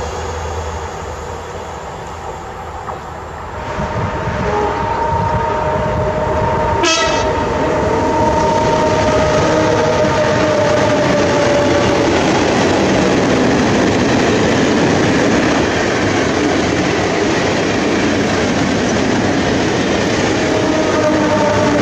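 A train approaching and running past, with loud, steady rumble and wheel-on-rail noise building from about four seconds in. Over it, a horn sounds one long steady note from about four and a half seconds to about twelve seconds.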